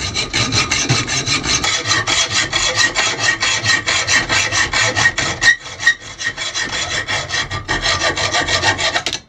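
Hacksaw blade cutting through 7/16-inch steel threaded rod held in a bench vise: fast, even back-and-forth strokes rasping on the metal. The strokes falter briefly about five and a half seconds in, then stop suddenly just before the end.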